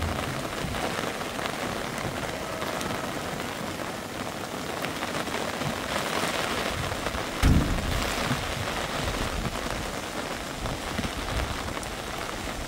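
Steady rain falling and pattering on the ground and surfaces, with one dull thump about halfway through.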